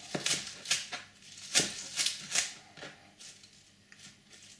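Knife roughly chopping kale leaves: irregular sharp chops, about half a dozen in the first three seconds, growing fainter toward the end.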